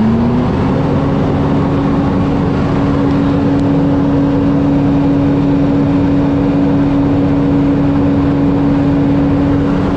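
Detroit Diesel 8V92 two-stroke V8 in an old fire truck, finishing a rise in engine speed just after the start and then holding a steady raised idle while its air system builds pressure.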